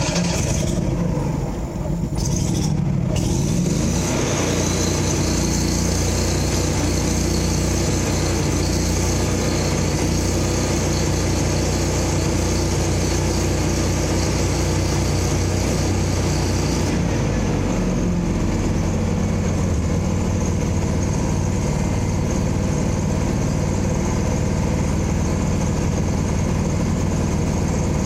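Truck engine idling just after starting: the running is uneven for the first few seconds, then settles into a steady idle. A high hiss over it stops about two-thirds of the way through.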